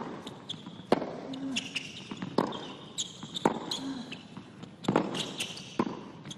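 Tennis rally on a hard court: the ball is struck back and forth by racquets, with sharp hits and bounces every second or so. Short high squeaks of tennis shoes on the court come between the hits.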